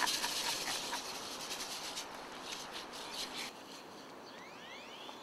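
Rain stick cascading: a dense rattling hiss of many small clicks that slowly fades out. A few short rising bird chirps come in near the end.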